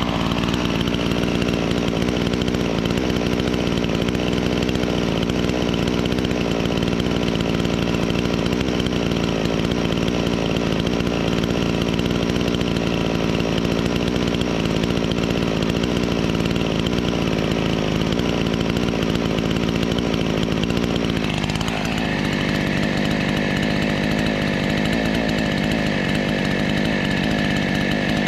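Chainsaw engine running steadily. About 21 seconds in its note dips briefly, then settles into a slightly different steady pitch.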